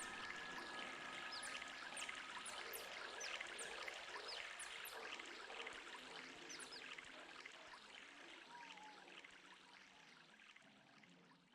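Trickling, dripping water texture in an ambient electronic track, with many short droplet-like chirps over a steady wash, fading out steadily toward silence.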